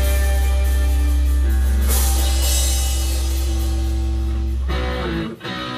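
Live rock band with electric guitars and drums holding heavy sustained chords over a deep low drone; the chord changes about a second and a half in. The low end cuts off about five seconds in, leaving a few short guitar notes.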